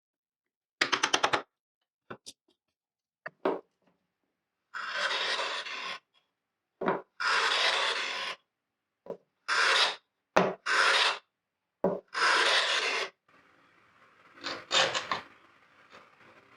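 A hand tool worked over wood in long single strokes, separated by short pauses, with a quick run of short strokes about a second in.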